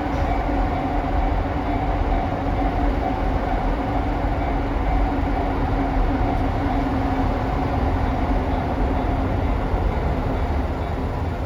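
Freight train passing on the Shitte branch line: steady rumble of wheels and running gear on the rails, with a steady hum over it that fades near the end.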